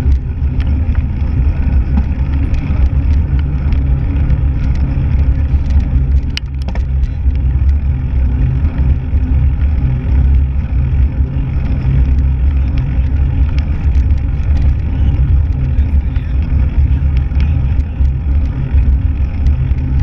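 Steady loud low rumble of wind buffeting a handlebar-mounted action camera's microphone on a moving mountain bike, mixed with tyre noise on a rough road surface. A few sharp rattles or clicks from bumps, the clearest about six seconds in.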